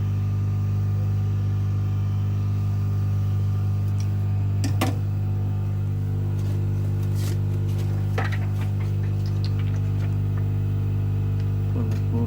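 Steady low electrical hum from the running heat tool. A sharp click comes about five seconds in, and small clicks and scrapes follow around eight seconds in, as the heated phone is pried open.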